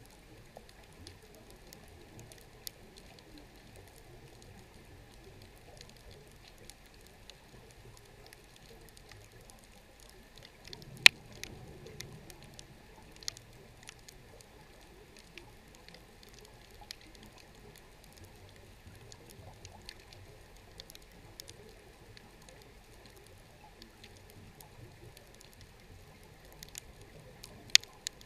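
Underwater ambience: a faint steady hiss with scattered sharp clicks and crackles, one louder click about eleven seconds in and two close together near the end.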